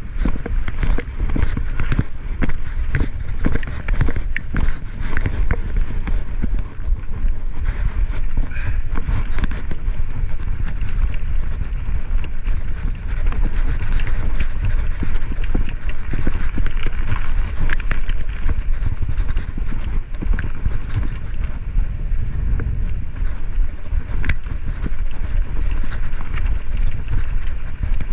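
Wind rushing over the microphone while cycling on the road. A steady low rumble runs throughout, with scattered clicks and knocks.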